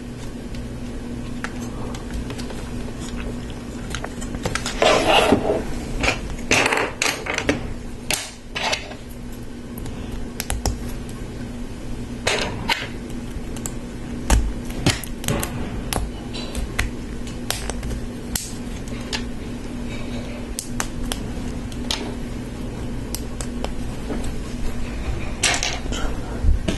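Plastic LEGO Technic pieces clicking and rattling as they are handled and pressed together: scattered sharp clicks and a few louder rattling bursts, over a steady low hum.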